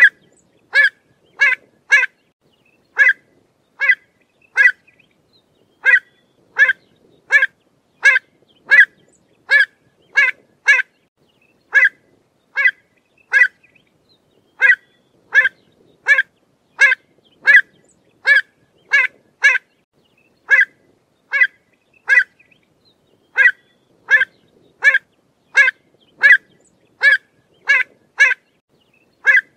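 Pied avocet calling: short, sharp notes repeated over and over in quick groups of two to four, with brief pauses between groups.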